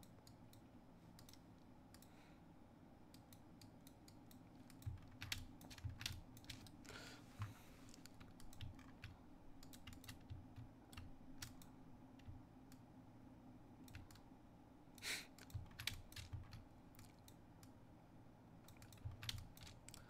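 Faint, scattered clicks and taps of a computer keyboard and mouse at irregular intervals, over a low steady hum.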